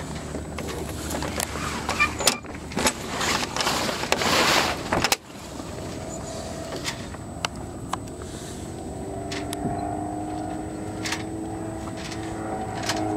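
Gusts of wind noise on the microphone with a few clicks, then a small propeller plane's engine droning overhead from about five seconds in, its pitch sliding slowly up and down as the plane manoeuvres.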